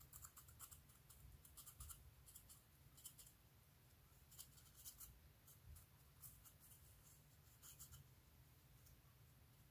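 Faint scratching and crackling of a metal-tipped tool digging into pressed eyeshadow in its plastic compact, crumbling the powder, in short bursts about once a second.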